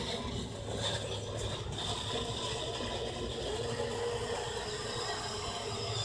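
A battery-powered ride-on toy Jeep's electric motor and gearbox running steadily as it drives across grass.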